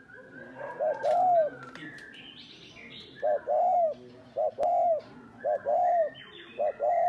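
Spotted dove cooing, five phrases in a row, each a quick double note and then a longer drawn-out coo. Fainter high chirps from small birds run underneath.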